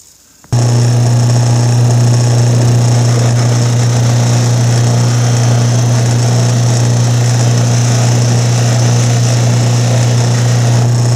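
Electric buffing machine running steadily with a strong low hum, used to buff out aluminium brake caliper cups. It comes in abruptly about half a second in.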